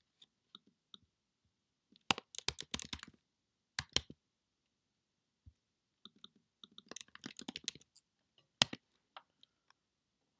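Typing on a computer keyboard: several quick bursts of key clicks, with a single louder click near the end.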